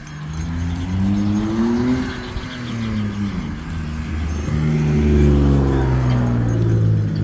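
Motor vehicles passing on the road beside the sidewalk: one car's engine note rises and then falls as it goes by, and a second vehicle comes through about halfway in.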